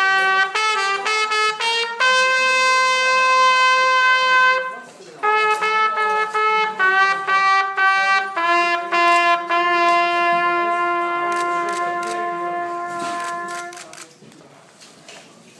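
Solo trumpet playing a slow phrase of held notes, with a short break about five seconds in, closing on one long note that stops about two seconds before the end. Afterwards only faint room noise with a few light knocks.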